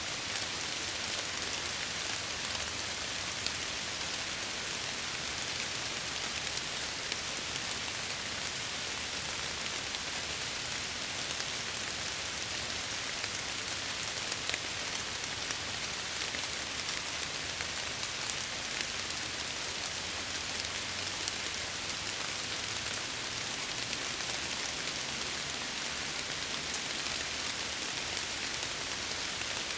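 Steady rain pattering on a window, an even hiss with scattered small drop ticks throughout.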